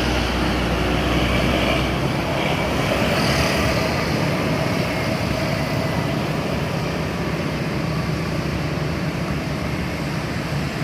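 Traffic passing on a road, most likely buses: a heavy low engine drone that drops away about two seconds in, followed by steady engine and road noise.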